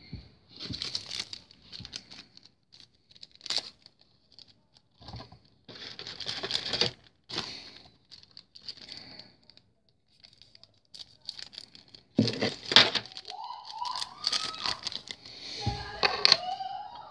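Plastic packaging crinkling and rustling in irregular bursts as it is handled, with clicks and knocks from small plastic parts. There are a couple of short squeaks in the last few seconds.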